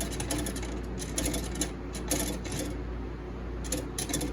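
Short, repeated metallic clinks and scrapes as molten lead is poured from a melting pot into weight holes in a wooden lure body, over a steady low hum.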